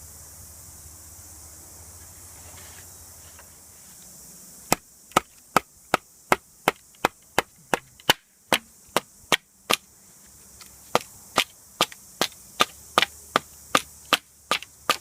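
Steady series of sharp chopping blows on bamboo, about two to three a second, splitting it into strips for weaving. The blows start about five seconds in and pause briefly midway.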